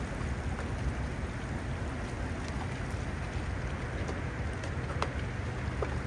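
Steady rushing noise of water and wind below a dam, with a couple of faint clicks.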